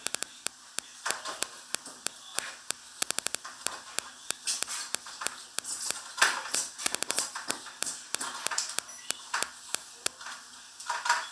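Hand work with kitchen utensils at a counter: a scatter of sharp clicks and taps, with several quick runs of clicks at several a second.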